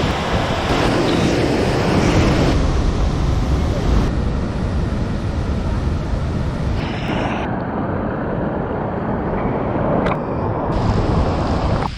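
Waterfall rushing: a loud, steady roar of falling water that changes abruptly in tone several times, as one waterfall gives way to another.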